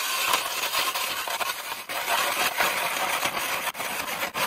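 Manual ice auger's steel blades grinding down into lake ice as the handle is cranked round, a steady crunching scrape of cut ice.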